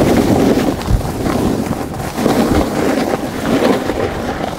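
Wind rushing and buffeting the microphone of a camera moving down a snow slope, mixed with a snowboard scraping and carving over the snow, with low thumps about a second in and again near the middle.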